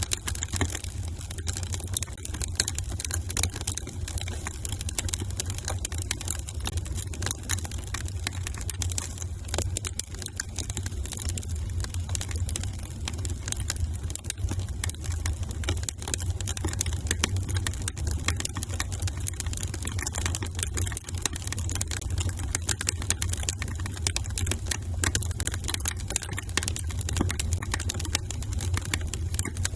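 Wood fire crackling in a fireplace: a dense, continuous run of small pops and snaps over a steady low rumble.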